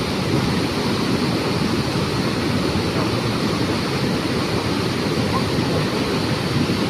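Floodwater rushing over a flood-control structure: a steady, unbroken roar of fast-moving water.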